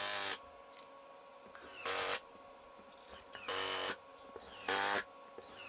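Cordless drill driving Spax wood screws into plywood without pilot holes: short whining bursts of about half a second, four or five times, each rising in pitch as it starts.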